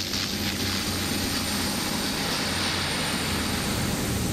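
Airliner engines running steadily, with rolling noise, as the plane moves along the tarmac just after landing, heard from inside the cabin.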